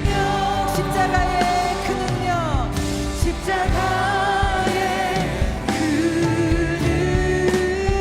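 Live worship band playing a contemporary Christian song, with a singing voice over sustained keyboard and guitar chords and drum hits.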